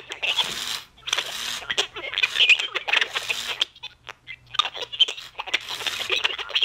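A broken animatronic singing, dancing Santa figure putting out garbled, voice-like sound from its speaker in choppy bursts, with no clear words, over a steady low hum. The sound breaks off briefly about a second in and again about four seconds in.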